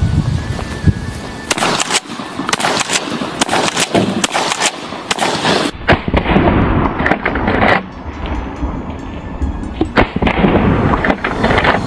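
Pump-action 12-gauge shotgun firing dragon's breath incendiary rounds: repeated loud blasts, each followed by a shower of burning magnesium sparks.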